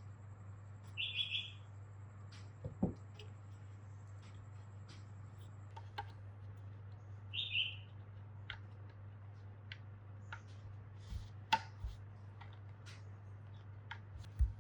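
Scattered light clicks and knocks of small parts being handled, over a steady low hum, with two short bird chirps: one about a second in and one about seven seconds in.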